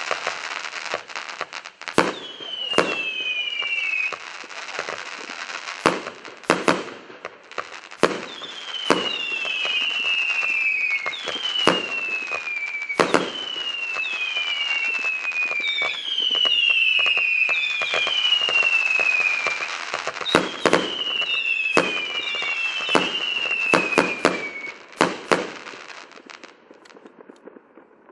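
100-shot 'Colorful World' fireworks cake firing shot after shot: whistles that each fall in pitch over about a second, sharp bangs and crackling. It dies away about two seconds before the end.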